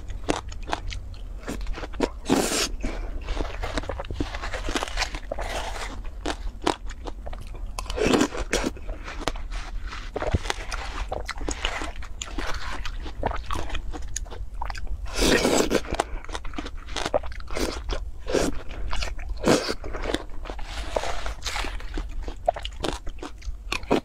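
Close-up crunching and chewing of juicy watermelon, with a metal spoon scooping into the flesh of a halved melon: a dense wet crackle throughout and louder crunches at several points. A steady low hum lies underneath.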